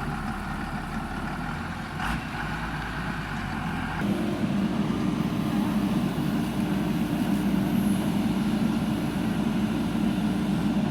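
Backhoe loader's diesel engine running, with a single knock about two seconds in. About four seconds in the engine picks up and holds a louder, higher note.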